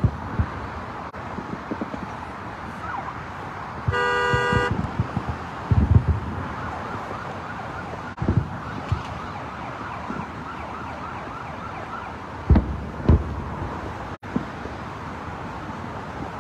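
Fireworks booming in the distance over a steady wash of traffic noise: several low thumps, the loudest about six seconds in and a pair about twelve to thirteen seconds in. A car horn honks once, briefly, about four seconds in.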